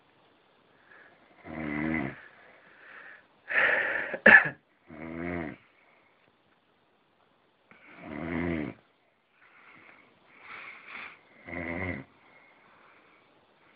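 A man snoring: about five rough, pitched snores, each under a second and a few seconds apart, with fainter breathing noises between. The loudest, about four seconds in, ends in a sharp snort.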